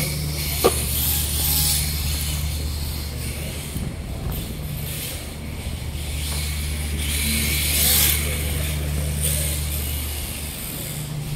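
Reve-D RDX RC drift car, running without its body, sliding on a smooth concrete track: the hiss of its hard drift tyres swells as it passes, twice, loudest about eight seconds in. A sharp click comes just under a second in, and a steady low hum runs underneath.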